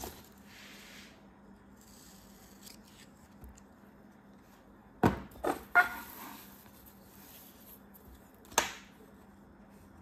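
Kinetic sand being handled with a faint soft rustle, then plastic sand-castle molds knocking against the table: three sharp knocks in quick succession about five seconds in, and one more about three seconds later.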